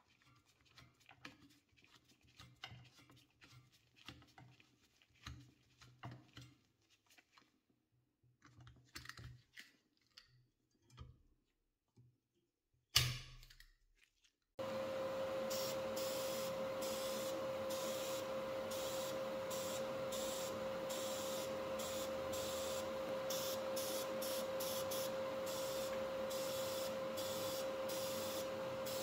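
Faint clicks and ticks of a screwdriver turning a screw into a cast-iron frame, and a single sharp knock. About halfway through, a powder-coating gun starts spraying with a loud, steady hiss and a constant hum-like tone, which runs on.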